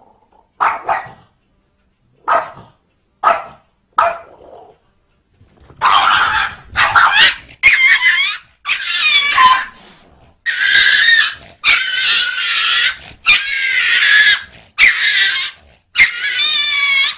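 A dog vocalizing: a few short yips, then a run of about nine drawn-out, high calls with wavering pitch, roughly one a second.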